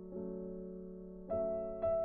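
Background piano music: held notes fading slowly, with new notes struck three times, just after the start, a little past the middle and near the end.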